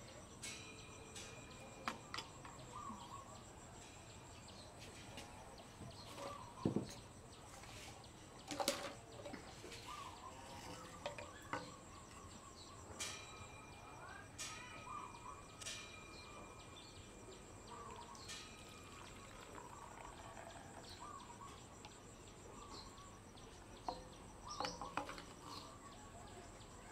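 Faint, scattered short bird chirps, with a few light knocks of plastic feeding bottles being handled on a tabletop.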